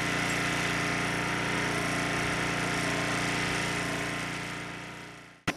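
A small engine running steadily at an even pitch, fading over the last second and cutting off suddenly near the end.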